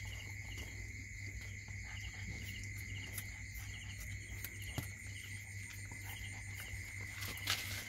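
Insects chirping: a steady high trill with a small chirp repeating about two to three times a second, over a low steady hum, with faint scattered clicks and one sharper click near the end.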